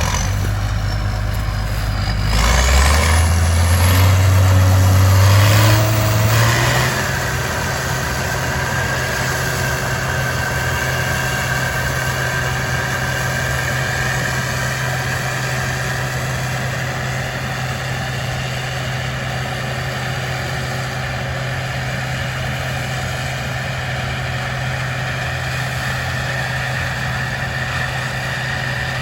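Engine revs up over a few seconds, then runs steadily at a higher speed with a constant high whine.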